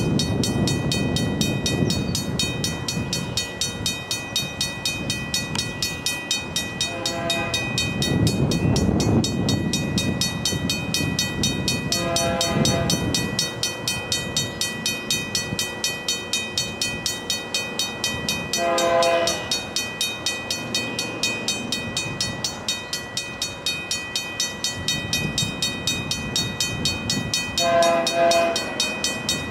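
Air horn of an approaching Canadian Pacific freight led by an AC4400CW locomotive, sounding four separate chord blasts of about a second each, several seconds apart, as it nears a level crossing. Under it a crossing bell rings steadily and fast.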